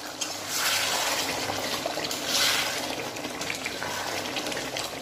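A metal spatula stirring a thick, simmering potato curry gravy in a kadai, the liquid sloshing in swells, the loudest about halfway through.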